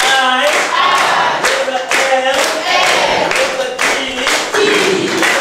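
A class of schoolchildren singing together and clapping along in a steady rhythm, about two claps a second.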